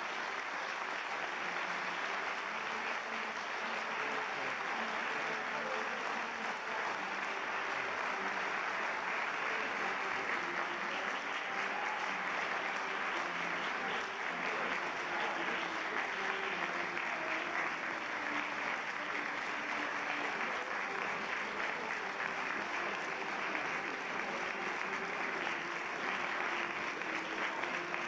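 A large audience applauding steadily at the end of a choral performance, a dense, even clapping that neither builds nor fades.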